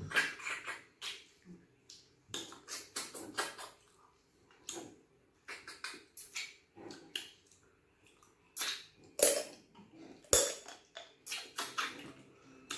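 Close-miked eating sounds: wet chewing and lip smacking in quick irregular bursts, with short pauses between mouthfuls.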